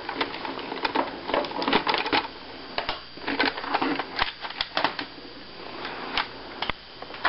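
Plastic clicks and rattles from handling a Nerf Raider blaster as its removable stock is taken off: a run of sharp clicks in irregular clusters with short pauses between them.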